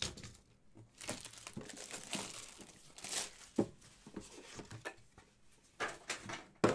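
Plastic wrapping crinkling and tearing as a hockey-card tin is unwrapped, with a couple of sharper rips, followed by a few light knocks.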